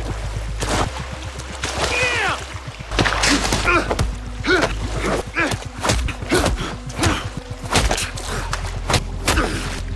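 Hand-to-hand fight sound effects: a rapid run of punch and body-blow thuds, each paired with a man's grunt or gasp, about two a second through most of the stretch.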